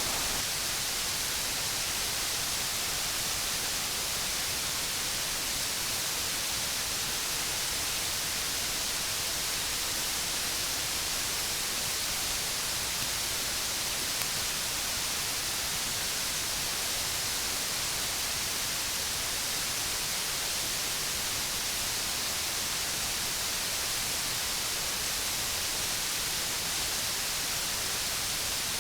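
Steady, even rush of water falling down a tall waterfall, a constant hiss-like roar that does not change.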